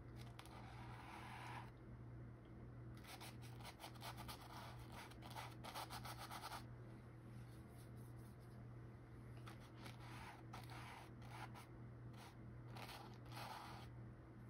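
Faint scratchy strokes of a paintbrush rubbing on canvas, in three spells of brushing with short pauses between, over a steady low hum.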